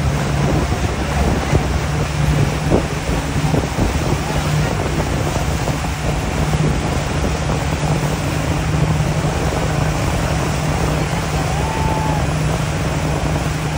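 A tow boat's engine running steadily under load, with wind buffeting the microphone and water rushing past the hull.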